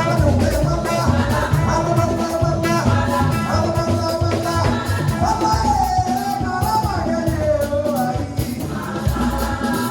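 Live band and singers performing gospel music: drums and bass under a sung melody, with one long held vocal note in the middle.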